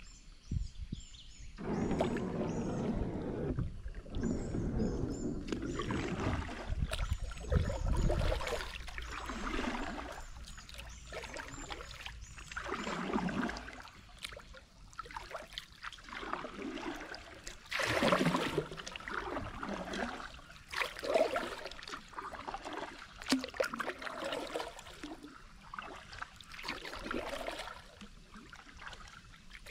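Kayak paddle strokes in slow river water: the paddle blades dip and swish at an uneven pace every second or few, with water trickling and lapping along the plastic hull between strokes.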